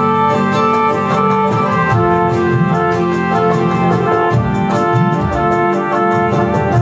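Saxophone music: long held notes over a quick, steady beat.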